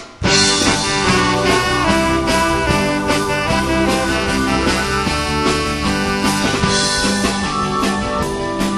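Live band kicking in together just after the start and playing the instrumental intro of a comic rock song, with sustained chords over regular drum beats.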